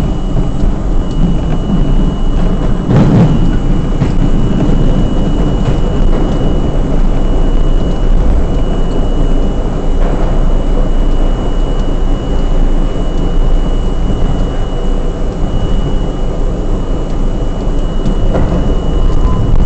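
R32 subway train running, heard on board: a loud, steady rumble of the car in motion with a thin constant high whine over it. A few sharp knocks cut through, the strongest about three seconds in.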